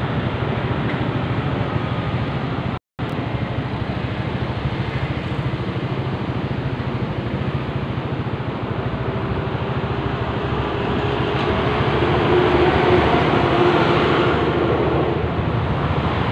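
A motor vehicle engine running steadily with road and wind noise. It cuts out for a moment about three seconds in and swells louder with a rising hum around twelve to fifteen seconds in.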